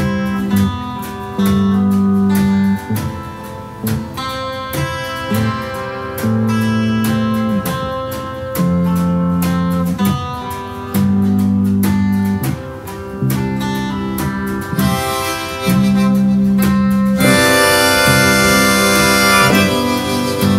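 Band backing track: an electric bass line of held notes over steady cajon played with brushes, with piano. Near the end a harmonica comes in loudly on long held chords, the full blows and draws the exercise calls for.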